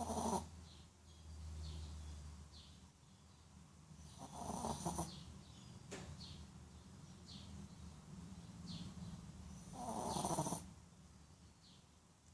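A sleeping Shih Tzu snoring: three loud snores about five seconds apart, with softer breathing sounds between them.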